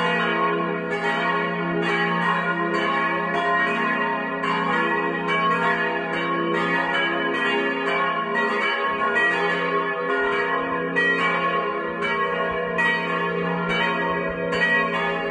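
Several church bells pealing together, overlapping strikes about two a second over a continuous ringing hum.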